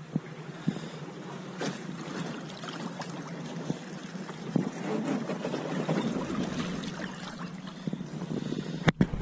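Electric trolling motor on the bow of a small boat running, its propeller churning the water, with light knocks and splashing. A louder low rumble cuts in suddenly at the very end.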